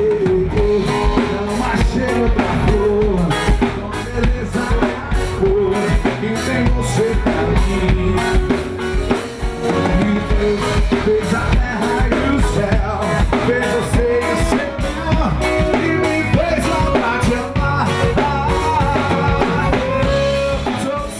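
Live band playing a song: a drum kit keeps a steady beat under electric guitar and a melody line.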